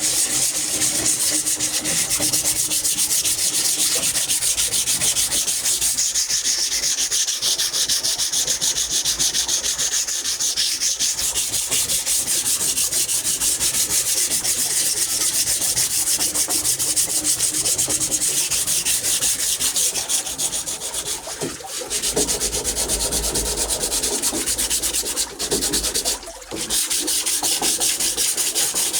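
Sandpaper rubbing over wood in rapid back-and-forth strokes, with two brief pauses late on.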